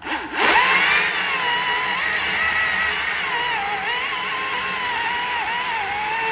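Makita top-handle cordless chainsaw's electric motor whining up to speed about half a second in. It then runs steadily, cutting, its pitch wavering up and down as the chain works through the wood.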